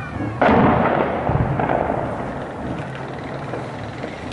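A single explosion from armed clashes: a sudden loud boom about half a second in that rolls and echoes across the city as it dies away over a couple of seconds.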